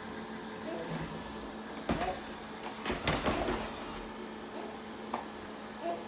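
360 Smart Life S9 robot vacuum running with a steady hum, knocking a few times around the middle and once more near the end.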